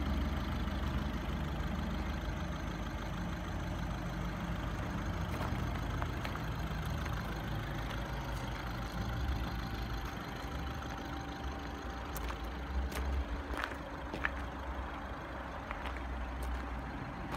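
Audi A1's 2.0 TDI four-cylinder diesel engine idling: a low, steady rumble, with a few light clicks in the second half.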